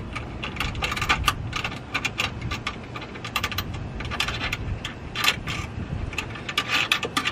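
Irregular light metallic clicks and clinks of a hood pin's washer and nut being fitted and worked onto its threaded stud under the radiator support, some coming in quick little clusters.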